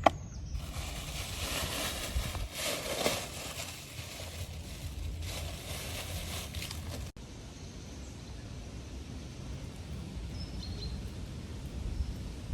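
Outdoor rustling for several seconds, which stops abruptly at a cut; then quiet outdoor ambience with a few faint high bird chirps.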